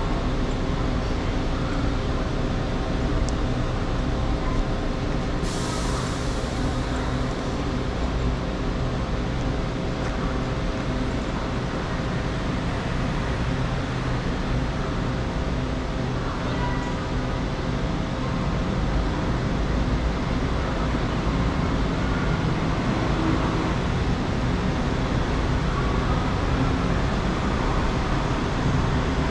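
Taichung MRT train standing at the platform with its equipment running: a steady hum with several held tones. About five seconds in, a sharp hiss starts and fades over a second or two.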